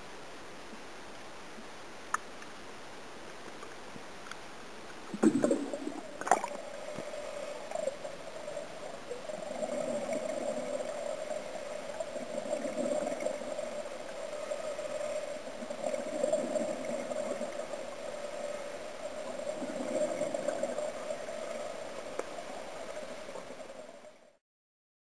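Underwater sound picked up by a camera in its waterproof housing: a steady hiss, two sharp knocks around five and six seconds in, then a steady droning hum with a lower rumble that swells every few seconds, cutting off near the end.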